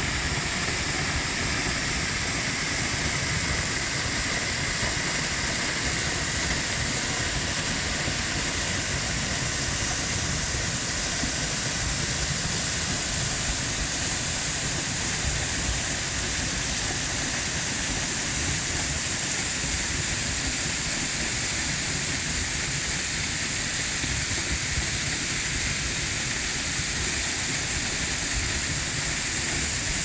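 Waterfall pouring down a rock face and splashing into a pool: a steady, unbroken rush of falling water.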